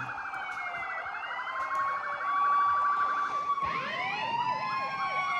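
Several sirens sounding at once: a fast yelp with slower wails until about three seconds in, then overlapping wails rising and falling.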